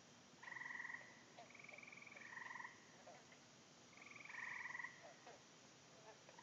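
Pond frogs calling: about five short buzzy trills, each half a second to a second long at a steady pitch, some overlapping at slightly different pitches as several callers answer one another.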